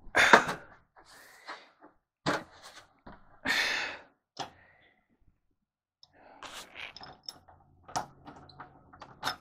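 Knocks, thumps and clicks of hard objects being handled in a small room, the loudest a thump right at the start, with a short rushing noise about halfway. A low steady hum comes in near the end.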